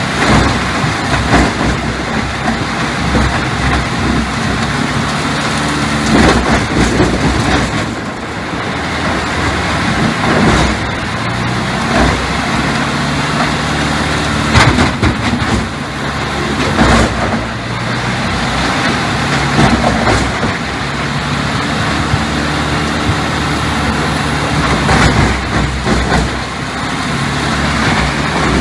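Heavy diesel machinery running steadily under load, with sharp knocks and cracks every couple of seconds.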